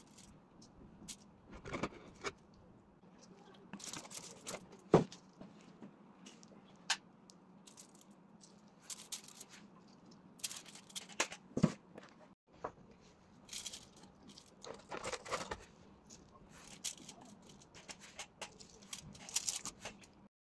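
Intermittent crinkling of aluminium foil and light knocks and rustles as sushi pieces are handled and set down in a foil-lined box, in irregular short bursts with a few sharp clicks.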